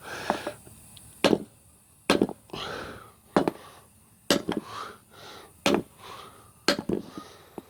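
Six hard hammer blows, about one a second, striking a rusted-on pitman arm to break it loose from the steering box shaft.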